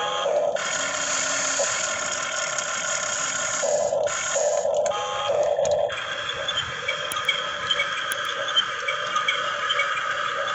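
Huina RC excavator's small electric motors and gearboxes whining and grinding as it works, the tone shifting each time a different motion starts or stops.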